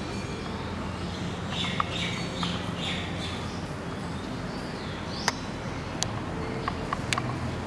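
Steady background ambience with a low hum. A cluster of short high chirps comes a couple of seconds in, and a few sharp clicks follow near the end.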